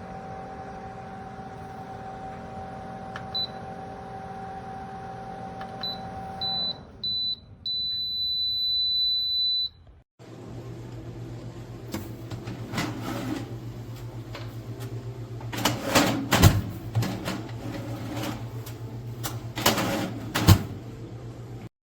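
Nuwave Bravo XL Pro air fryer oven's convection fan running with a steady hum, which stops about seven seconds in. Then come a few short high beeps and one long beep of about two seconds, the oven's alert. After a brief break, a low steady hum with scattered knocks and clatter.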